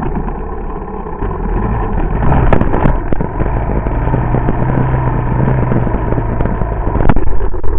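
Small off-road engine running on a trail, recorded from a camera mounted on the vehicle, with rattles and knocks from the rough ground. There is a sharp knock about seven seconds in, and the engine gets louder near the end.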